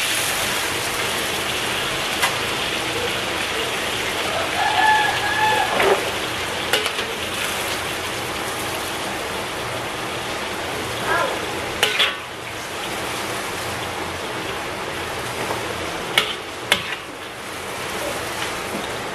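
Hot cooking oil sizzling steadily around half-fried green chilies in a wok while they are scooped out with a wire strainer, with a few sharp metal clinks of the strainer against the wok.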